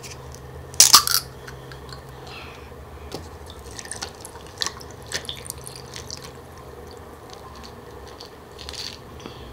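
A can of winter melon drink cracks open about a second in, then is poured over ice into a glass, with liquid splashing and ice clinking. Near the end comes a soft sip through a straw.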